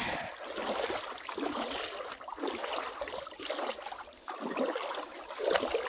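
Water sloshing and swishing around legs wading through a knee- to thigh-deep creek, swelling in uneven surges with each stride.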